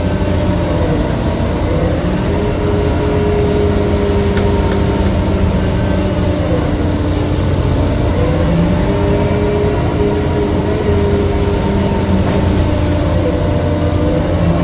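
Crab fishing boat's engine and deck machinery running with a loud, steady low drone, its tones dipping and shifting now and then.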